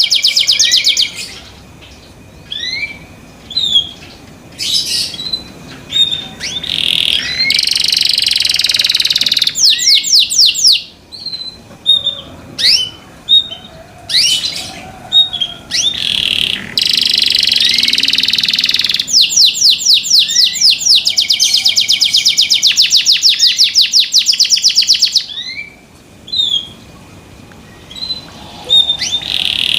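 Domestic canary singing: long, loud rolling trills of rapidly repeated high notes, alternating with short rising chirps and brief pauses.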